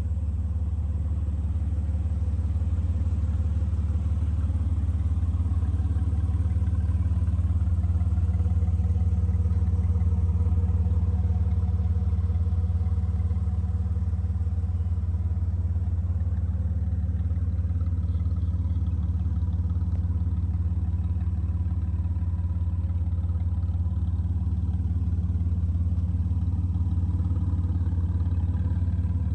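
2005 Jeep Wrangler TJ's 4.0 L straight-six engine idling steadily, a deep even rumble.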